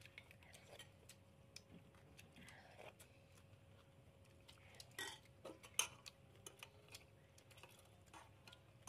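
Faint, scattered clinks of metal spoons against ceramic plates and bowls during a meal, the loudest a couple of sharper clinks about five to six seconds in, over a faint steady hum.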